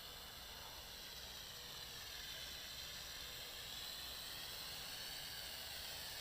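JXD 509 toy quadcopter's motors and propellers whining faintly in flight, the pitch of the whine wavering slowly up and down.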